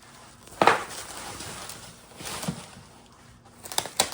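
Packing material being pulled out of a cardboard box: rustling and crinkling, with a sharp knock about half a second in and a run of quick clicks near the end.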